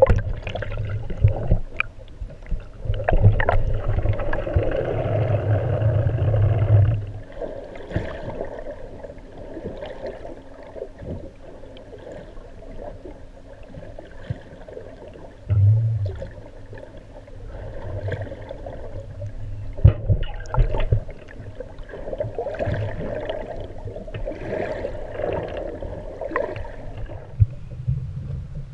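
Muffled underwater sound picked up through a submerged camera's housing: a low rumble with gurgling and scattered sharp clicks and knocks. It is louder for the first seven seconds or so.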